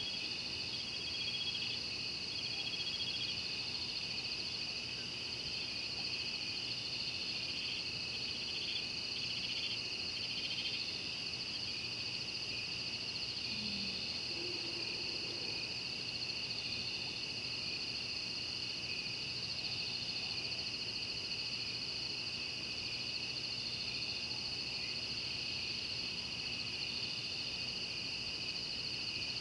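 Night chorus of insects and frogs: a steady, high, continuous trill, with short repeated frog calls over it during the first ten seconds or so.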